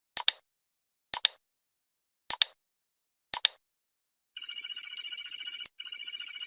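Quiz countdown timer sound effect: four sharp double ticks about a second apart, then, about four seconds in, a loud high electronic alarm like a ringing telephone bell starts up, with a brief break, signalling that the time to answer is up.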